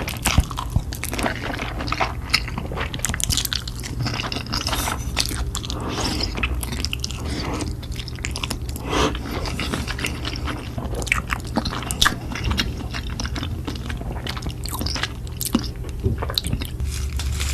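Close-miked eating: repeated bites and crunchy chewing, with many sharp crackles.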